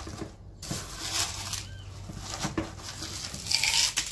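Small plastic scoop scraping into a tin of fine gravel, then the gravel rattling and pattering onto the soil of a potted succulent as a top dressing, loudest near the end. A bird chirps briefly in the background.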